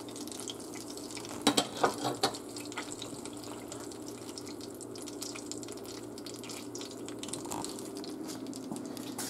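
Hot butter sizzling and crackling steadily in the baking pan around a freshly baked trout, with a few light knocks about one and a half to two seconds in.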